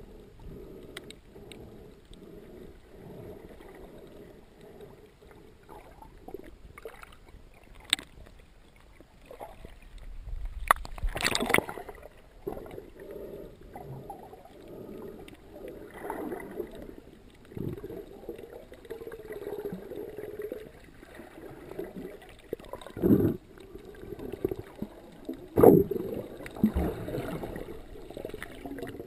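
Muffled underwater sound: a steady low rush of moving water, broken by a few louder irregular bursts and knocks, the loudest about eleven seconds in and again near the end.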